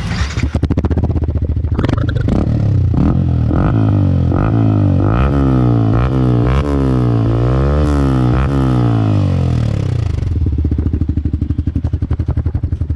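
Yamaha R15 V4's 155 cc single-cylinder engine through an aftermarket exhaust with its dB killer removed. It idles, is revved up and down in a run of quick throttle blips from about two seconds in until about ten seconds in, then settles back to idle.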